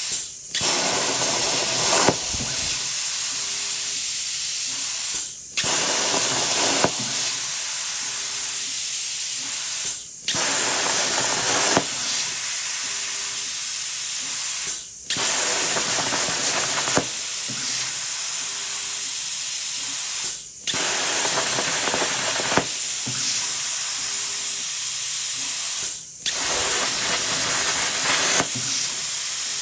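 CNC plasma torch cutting sheet metal: a steady, loud hiss of the plasma arc, broken about every five seconds by a brief gap as the arc goes out and restarts on the next cut. Each restart is louder for a second or two.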